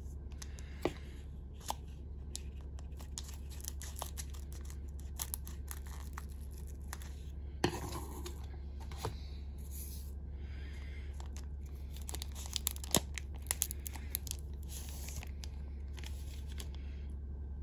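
Foil trading-card pack wrapper crinkling and being torn open, with short crackles and rustles, loudest about seven and a half seconds in, then cards slid and handled. A steady low hum runs underneath.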